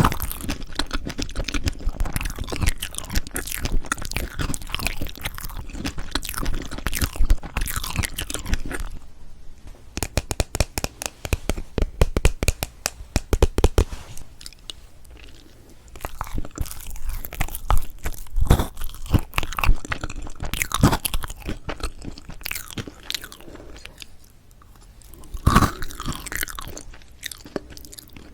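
Close-miked chewing and biting of strawberry chocolate cream cake: dense runs of small clicking mouth and food sounds, broken by a couple of short lulls.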